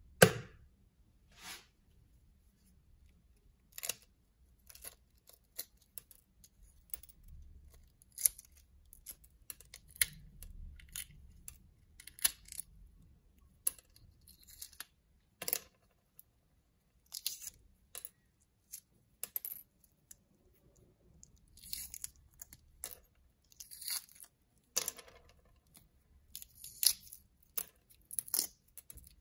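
Hard-boiled egg shell being cracked and peeled by hand: one sharp crack at the start, then many small irregular crackles and snaps as pieces of shell are picked and pulled off the egg.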